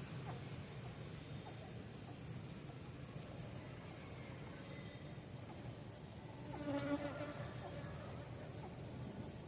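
Steady high-pitched drone of insects, with a short chirp repeating about once a second. About seven seconds in, a brief louder pitched call rises over it.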